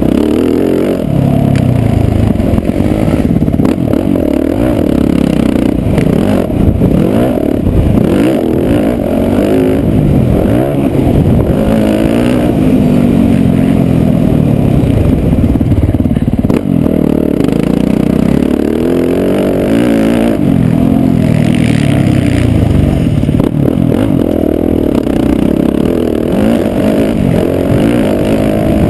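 Motocross dirt bike engine picked up close by an onboard camera, revving up and down again and again as the rider accelerates and backs off around the track, its pitch rising and falling in repeated sweeps.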